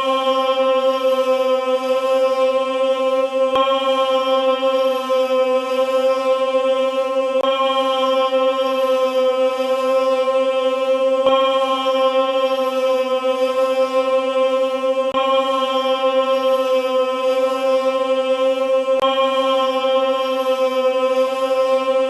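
A single held droning note with many overtones, steady in pitch and loudness, repeating as a loop about every four seconds with a faint click at each join.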